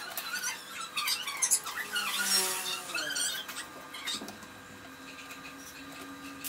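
Metal parts of a full-metal die-cast RC excavator clicking, scraping and squeaking as an attachment is fitted by hand onto the tip of its arm, busiest in the first three seconds, then quieter.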